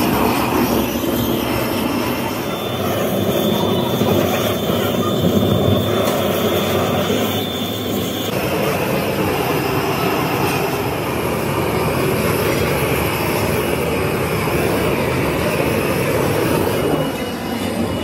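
Gas torch flame blowing into an open sand mould, drying the mould cavity before casting: a steady rushing noise.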